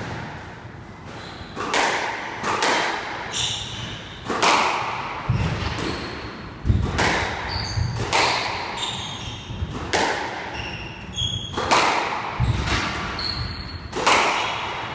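Squash rally: the ball cracks off rackets and the walls about once a second, each hit echoing in the enclosed court. Short high squeaks from court shoes on the wooden floor and a few heavier footfalls come between the hits.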